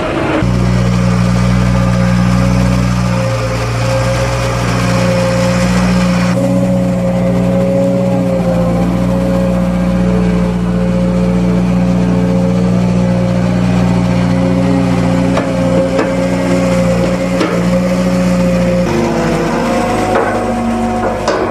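Liebherr 538 wheel loader's diesel engine running steadily under load with a constant whine while it pushes and spreads chopped corn silage on the clamp. The engine note shifts near the end.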